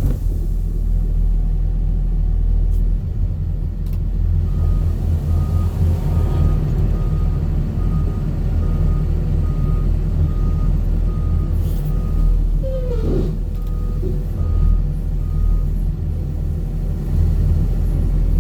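Heavy diesel machinery running with a steady deep rumble. Partway through, a reversing alarm beeps evenly a little under once a second for about ten seconds, the sign of the machine or a truck backing up.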